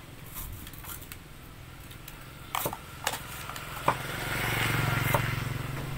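A small engine hums steadily and swells louder about four seconds in, with a few sharp taps over it.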